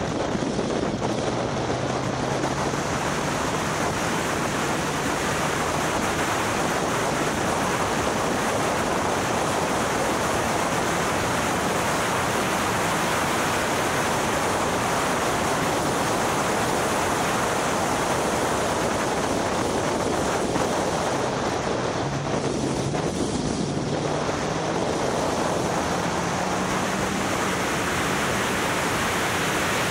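Heavy wind rush over the microphone of a track car at speed. The engine note is faint beneath it, its pitch rising and falling as the car accelerates and slows.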